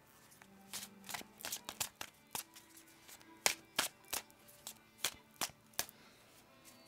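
A tarot deck being shuffled by hand: a run of about fifteen sharp, irregular slaps and flicks of the cards over roughly five seconds, with soft background music underneath.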